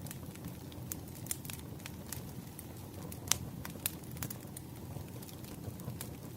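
Wood fire burning: irregular sharp crackles and pops over a low steady rumble, with one louder pop about halfway through.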